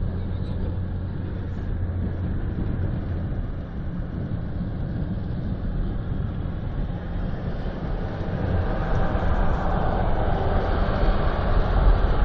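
Motorway driving noise heard from inside a car cabin: a steady low drone of road and engine noise. It grows louder from about eight seconds in as the car draws alongside an articulated refrigerated truck.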